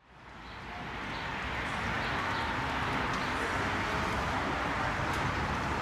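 Outdoor background noise fading in from silence to a steady hiss with a low rumble, with a few faint high chirps in the first half.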